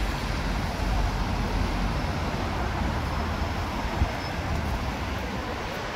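Street traffic noise: cars on a town road, a steady low rumble with a single brief thump about four seconds in.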